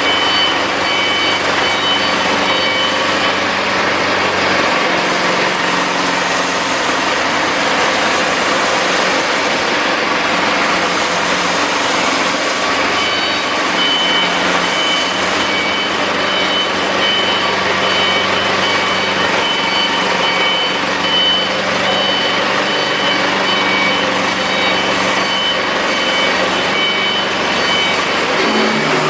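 Cummins QSNT-G3 diesel generator set running steadily at a constant speed. A high, rapidly repeating beep sounds over it, stopping from about three seconds in and returning at about thirteen seconds.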